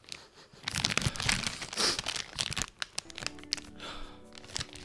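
Crinkling of a glossy plastic snack bag of popcorn as the freshly opened bag is handled. There is a dense run of crackles over the first two seconds or so, and sparser crinkles after that.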